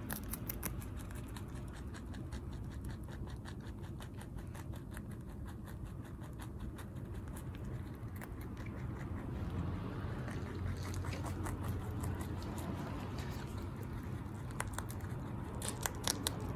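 Netherland Dwarf rabbit chewing a freshly harvested broccoli stalk fast: a rapid run of crunches, several a second, thinning out around the middle and picking up again.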